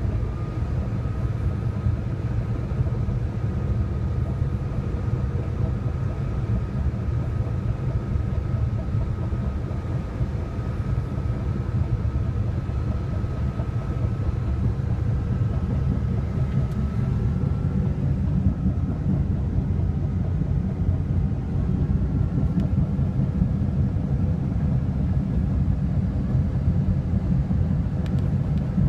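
Caterpillar D6T LGP bulldozer running: a deep, steady diesel rumble with a faint high whine above it that fades out about two-thirds of the way through.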